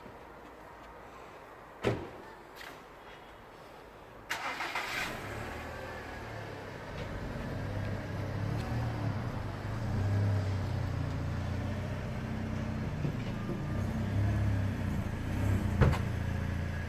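A single thump about two seconds in, then a car engine cranks and catches about four seconds in and settles into a steady low-pitched idle that slowly grows louder; a sharp click near the end.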